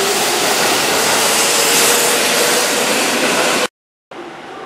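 Keihan 7200-series electric train cars running past close by, a loud rushing of wheels and air with a faint steady whine. It cuts off abruptly about three and a half seconds in, and after a brief silence a much quieter, more distant train sound begins.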